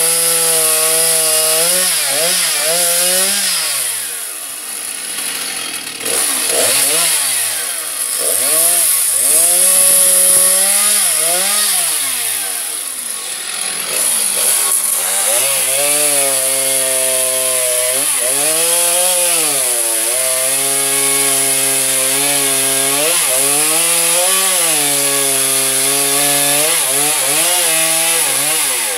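Two-stroke chainsaw running and being revved up and down over and over, its pitch rising and falling as it cuts walnut wood; in a few stretches a rougher cutting noise covers the engine note.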